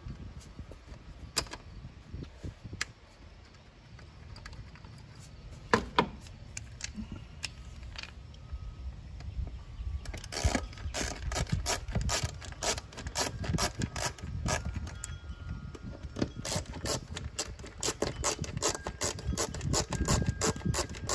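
Hand screwdriver turning the mass airflow sensor's Phillips screws back into the intake housing: a few scattered clicks, then from about halfway a fast run of ratchet-like clicking.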